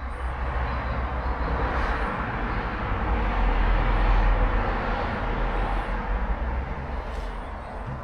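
A vehicle passing by, its rumble and road noise swelling to a peak about halfway through and then fading.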